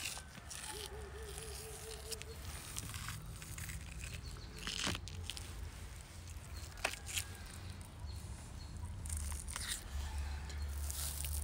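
Handling sounds of the thin membrane being peeled and picked off a raw beef liver on a wooden cutting board, with a few sharp clicks, over a low outdoor rumble. A short warbling call is heard about a second in.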